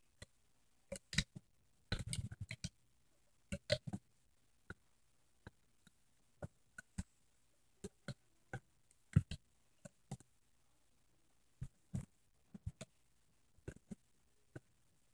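Faint, scattered clicks and taps of a loom hook and rubber bands working against the plastic pegs of a rubber-band loom, one sharper click about nine seconds in.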